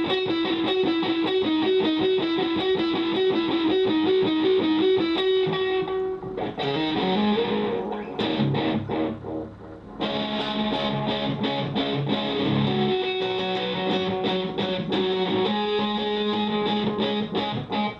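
Distorted electric guitar played through a homemade delay pedal: a fast run of repeated picked notes for about six seconds, then fuller chords with the delay adding repeats.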